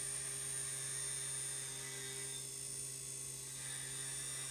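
CNC milling machine running: a steady hum with several faint high-pitched tones over it.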